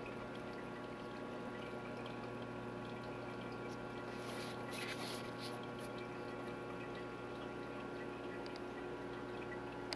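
Water circulating in a Biocube 29 reef aquarium, trickling and splashing steadily over a constant hum. There is a short spell of louder splashing around the middle.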